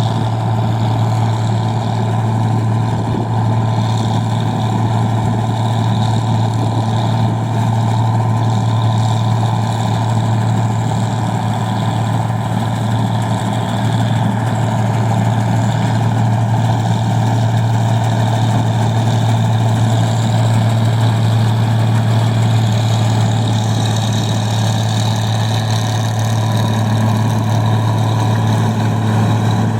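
Engine of a rice machine running steadily at a constant speed, with a strong low hum and mechanical clatter.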